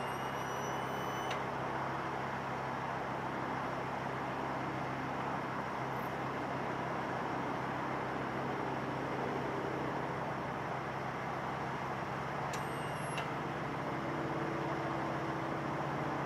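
Ford F-350 Super Duty pickup's engine idling steadily.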